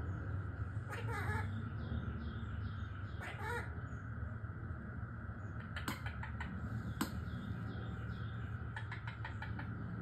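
Quaker parrot giving two short, harsh squawks, about one and three seconds in, then a few sharp clicks later on, over a steady low hum.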